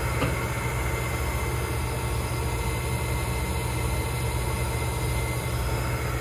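Feeder and delivery air pumps of a Ryobi 662H offset printing press running with a steady, even hum.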